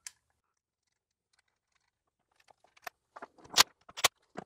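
Quiet at first, then from about halfway a few sharp metal clicks and taps: short M8 bolts and a cordless driver being set onto the cam sensor bracket on the cylinder head. The driver's motor is not heard running.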